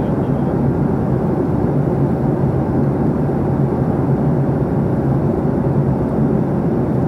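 Steady in-flight cabin noise of a Boeing 737-800 heard from a window seat just ahead of the wing: the drone of its CFM56 turbofan engines and the rush of air past the fuselage, with a low hum under it.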